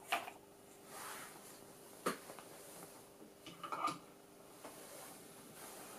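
A few short clicks and knocks of small objects being handled on a workbench. One comes just at the start, one about two seconds in, and a quick cluster a little later. A faint steady hum runs underneath.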